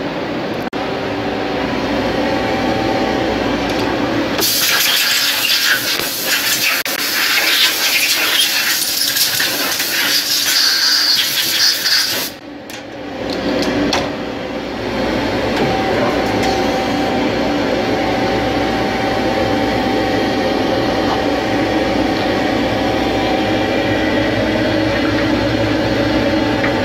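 CNC turning lathe running with a steady machine hum of several held tones. About four seconds in, a loud hiss starts, lasts about eight seconds and cuts off suddenly, after which the hum carries on.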